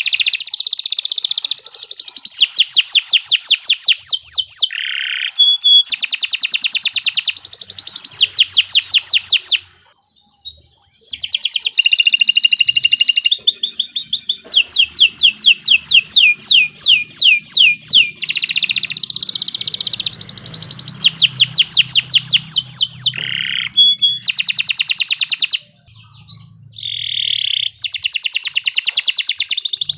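Domestic canary singing a long, fast song of rapidly repeated trilled notes, high-pitched and loud, broken by two short pauses, one about a third of the way in and one near the end.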